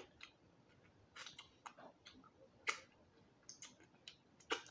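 Close-miked mouth sounds of a person licking and sucking her fingers: scattered, irregular wet clicks and lip smacks, faint, with the loudest smack near the end.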